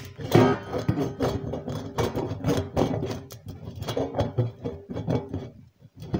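Sheet-steel stove pipe sections knocking and clanking as they are handled. Many of the irregular knocks ring on briefly in a metallic tone.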